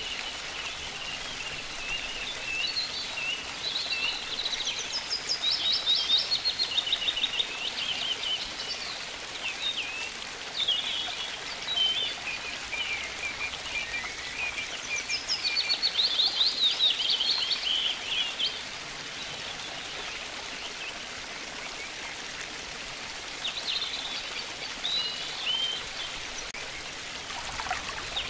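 Songbirds singing, with bursts of rapid trills loudest about six and sixteen seconds in, over a steady rush of water running over small cascades.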